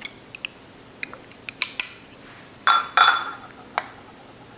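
A ceramic ramen bowl and utensils clinking as they are handled: a scatter of light taps, then two louder clinks with a short ring just under three seconds in, and one more tap near the end.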